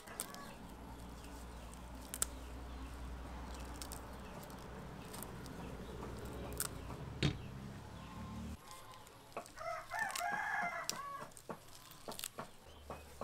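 A rooster crows once, about ten seconds in, over scattered light clicks and rustles of fresh herb leaves being handled in a stainless steel colander. A low steady hum runs under the first eight or so seconds and cuts off suddenly.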